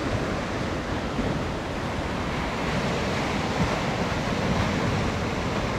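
Sea surf washing against a rocky shore, a steady rush of noise, with wind buffeting the microphone.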